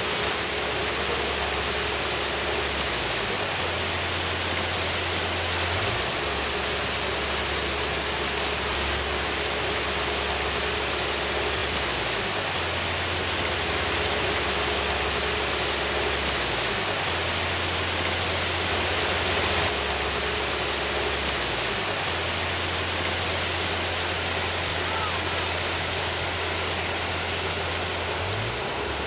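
Mountain torrent running fast over a rocky, gravelly bed: a steady, unbroken rush of whitewater.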